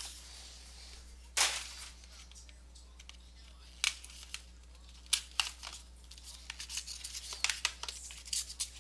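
Cardboard trading card box being handled and opened by hand: scattered scrapes, rustles and light taps, the longest scrape about a second and a half in and a run of quick ones near the end.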